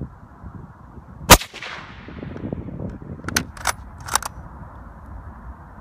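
A single shot from a Mosin-Nagant bolt-action rifle in 7.62x54R, fitted with a SilencerCo Specwar 762 suppressor: one sharp report about a second in, trailing off in a short echo. About two seconds later come three quick, quieter clicks.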